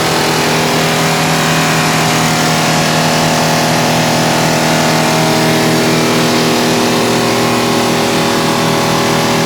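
Mini jaw stone crusher running steadily: its drive engine drones at an even speed under a broad, steady noise from the machine.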